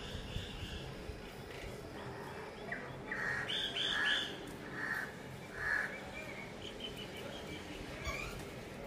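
Birds chirping: short high calls, clustered about three to six seconds in, with a few more around seven seconds, over faint outdoor background noise.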